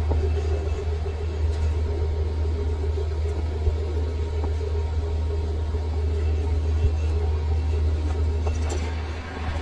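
Metal lathe's electric motor running with a steady low hum, with a few faint light knocks.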